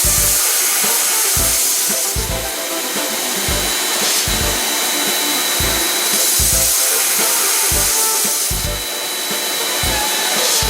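High-pressure water jets from an air-conditioner washing robot hissing steadily, the hiss swelling and easing every couple of seconds. Background music plays underneath.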